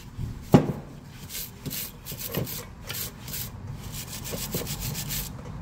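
Hand brush scrubbing metal brake-caliper hardware clips with quick back-and-forth strokes, cleaning them for reuse. There is a sharp knock about half a second in.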